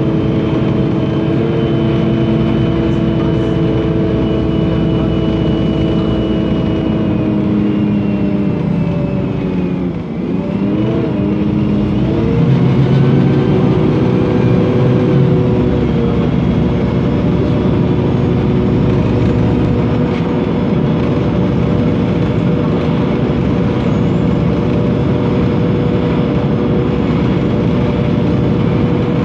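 Engine of a MAN NL 273 T3 LPG city bus running. Its pitch falls over a few seconds and briefly dips about ten seconds in, then climbs again and settles into a steady run. A fainter high whine above the engine falls with it.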